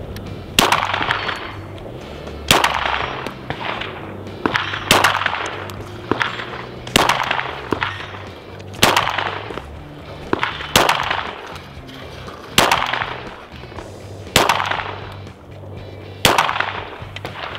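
9mm Glock pistol firing slow aimed single shots, about nine in all, roughly one every two seconds, each crack followed by a short echo.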